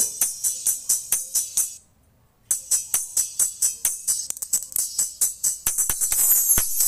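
Music played through a small dome tweeter with a 3.3 µF capacitor wired in series as a simple passive crossover, so only the treble comes through: thin, high percussion hits about four times a second. It cuts out for about half a second around two seconds in, then returns, with a denser high hiss near the end.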